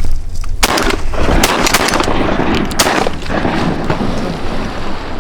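Several shotgun shots in quick succession over about two seconds, each a sharp crack trailing into a rumbling echo: hunters firing on incoming geese.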